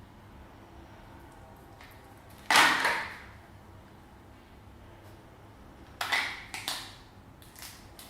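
Slime being handled and squeezed by hand, giving wet squelching noises: one loud squelch about two and a half seconds in, then a quick run of shorter ones near the end.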